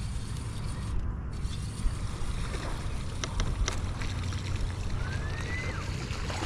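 Steady low rumble and hiss of a fishing boat on the water, with a few sharp clicks about three seconds in and a short rising whistle near the end.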